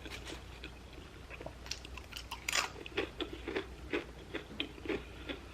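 A person chewing food close to the microphone, with irregular soft clicks and smacks of the mouth.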